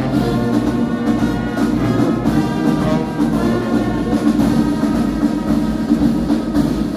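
Brass band playing a hymn tune in sustained, loud chords.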